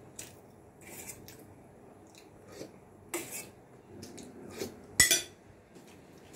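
Spoons and forks clinking and scraping on plates during a meal, in short scattered strokes, with one sharp, loud clink about five seconds in.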